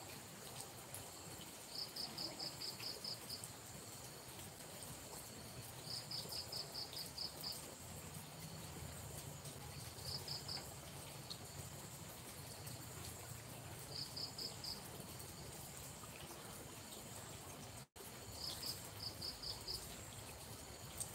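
Night insects chirping: one calls in short trains of rapid high pulses, repeating about every four seconds, over a steady high-pitched hum of other insects.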